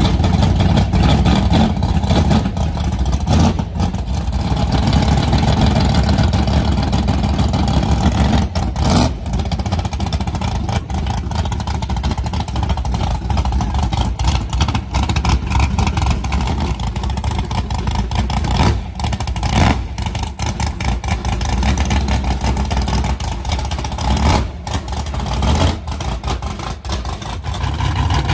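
A mud-racing vehicle's engine running loud, with many sharp clicks and knocks scattered through it.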